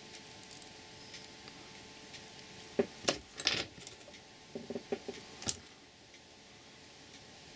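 Small metallic clinks and taps from bench work: a few sharp clinks about three seconds in as the soldering iron is put down, then a run of lighter clicks around five seconds in while the soldered wires and LED strip are handled.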